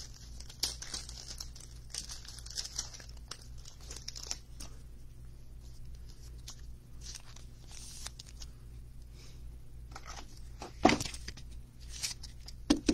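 Soft crinkling and rustling of thin clear plastic as a baseball card is handled and slid into a plastic card sleeve, with a couple of sharper plastic clicks near the end.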